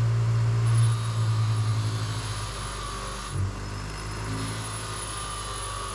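Bench grinder running with a steady motor hum while a Ford 400 exhaust valve is held against the wheel to clean the carbon off it. The level drops about a second in, and there is a brief low thump about three and a half seconds in.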